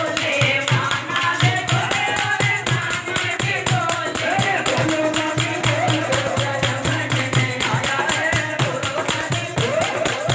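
A live Hindi devotional bhajan: a woman sings through a microphone over group hand-clapping, a hand drum and jingling percussion keeping a fast, steady beat.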